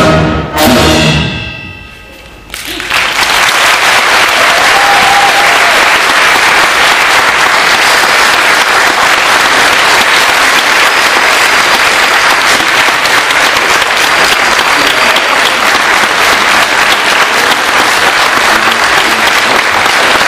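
A concert wind band's last chord ends within the first second. After a brief lull, the audience starts applauding about three seconds in and the applause stays steady and full.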